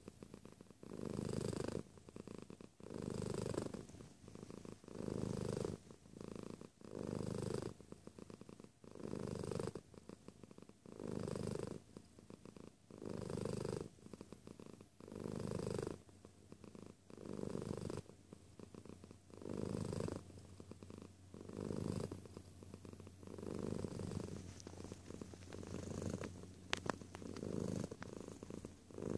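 A domestic cat purring right at the microphone, a steady low rumble that swells and eases about every two seconds as it breathes in and out. A brief sharp click sounds near the end.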